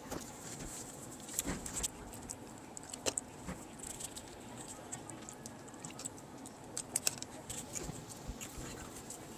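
Scattered light clicks and taps of small hard parts being handled, irregular and uneven, over a faint steady hiss.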